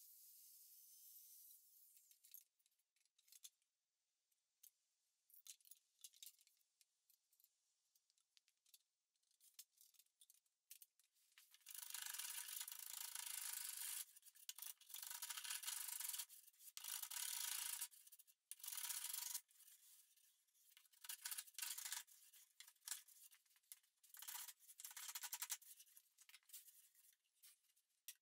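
A hand tool stroked again and again along the edge of a wooden board, a dry rubbing sound. The first few strokes each last a second or two, and the later ones are shorter and quicker. Before the strokes begin there is near silence with faint ticks.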